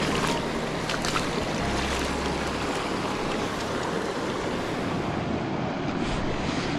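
Steady rush of a fast-flowing creek over rocks, with a few short clicks near the start and a brief low wind rumble on the microphone about two seconds in.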